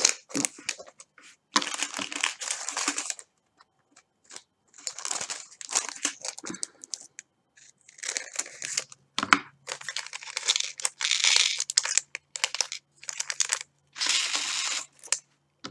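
Thin plastic sheet crinkling and rustling as it is handled, in irregular bursts of a second or two.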